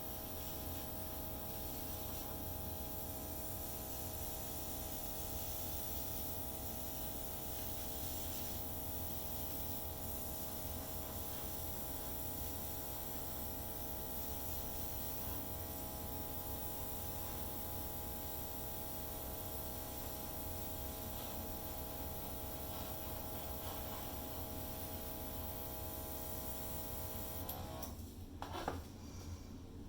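Airbrush compressor running steadily with a humming tone and a hiss of spraying air, cutting off near the end, followed by a short knock.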